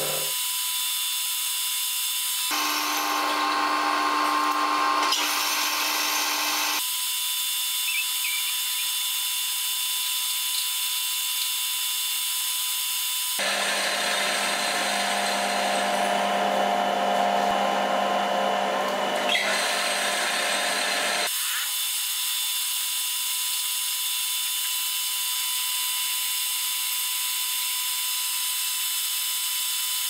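Metal lathe running with its chuck spinning while a cutting tool turns the tapered tip of a metal rod: a steady machine whine that changes abruptly several times.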